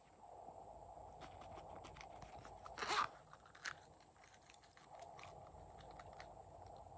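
Soft handling of a squeezable plastic toy as it is tipped and squeezed to shake flower-shaped sequins onto glitter slime, with faint ticks, one brief crunchy rustle about three seconds in and a small click just after.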